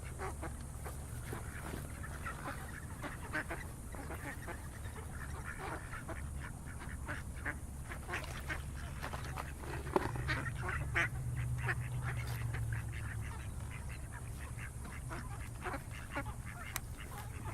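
A flock of ducks quacking: many short calls overlapping and scattered throughout, over a steady low rumble.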